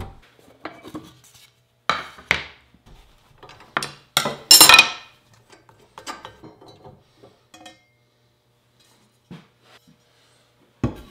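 Metal clinks and clanks as a table saw is taken apart by hand to change the blade at the arbor: several sharp knocks, the loudest a ringing metallic clatter about four seconds in, then a few lighter clicks.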